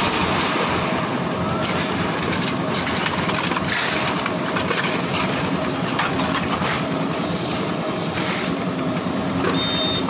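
Concrete mixer machine's engine running steadily, with shovels scraping and scooping wet concrete out of a steel tray.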